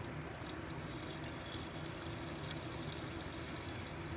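Windshield washer fluid pouring in a thin stream from a plastic jug into the washer reservoir's filler neck, a faint, steady trickle.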